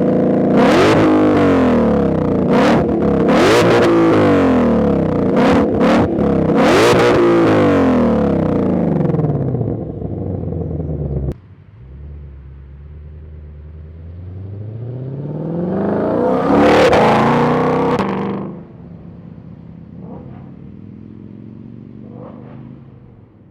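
Ford Mustang Shelby GT500's supercharged 5.2-litre V8 on its stock exhaust, revved repeatedly with several sharp cracks. The sound cuts off suddenly about eleven seconds in. It is followed by one long rev that climbs to a peak and drops away, then a quieter idle with a couple of small blips.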